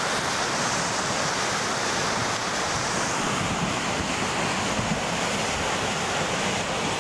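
Flash-flood torrent of muddy water and debris rushing past, a steady dense rushing noise, with wind buffeting the microphone.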